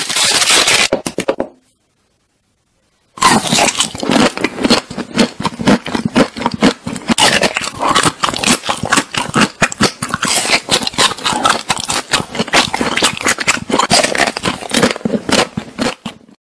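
A wrapper crackling as it is cut open, then after a short pause a long run of rapid, dense crunching and crackling from chocolate-and-nut coated ice cream bars being bitten, which stops just before the end.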